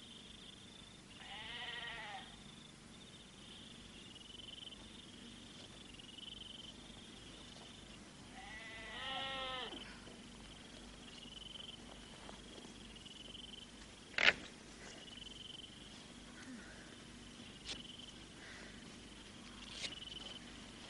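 Two bleats from a farm animal, about seven seconds apart, over a faint high chirp that repeats every second or two. A single sharp click comes about two-thirds of the way through.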